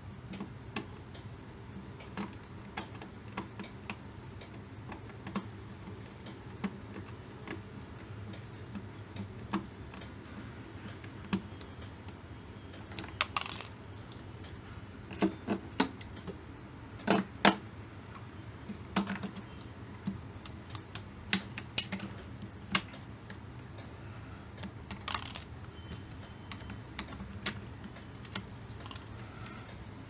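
Irregular clicks, taps and knocks of hands handling a cardboard box and a plastic toy piggy-bank safe, with a cluster of louder knocks in the middle.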